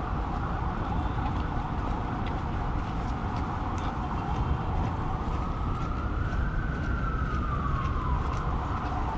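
An emergency vehicle siren wailing from the streets below, its pitch sweeping slowly up and down, with a long rise and fall in the second half. Under it runs a steady low rumble of wind and city noise.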